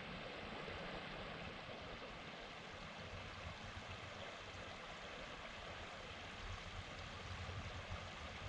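Steady rush of water running in a creek that is still mostly under ice.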